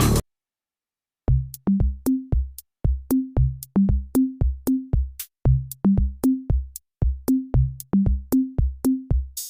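Electronic background music. After about a second of silence, a sparse drum-machine beat starts: short kick-drum hits, each with a click and a brief low bass note, about three a second.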